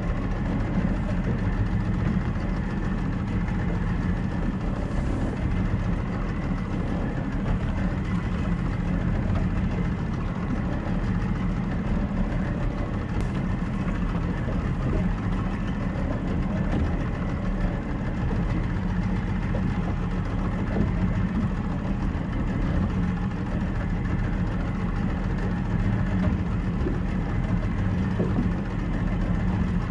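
Small motorboat's engine running steadily, a low, even drone with no change in speed.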